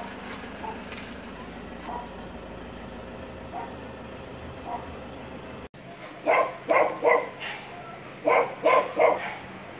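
Puppies giving faint short yelps over a steady low hum. After a sudden cut, a dog barks loudly in quick runs of two to four barks.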